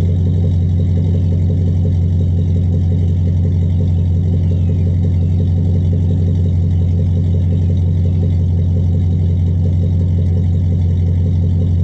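Pickup truck engine idling with a steady, even low hum.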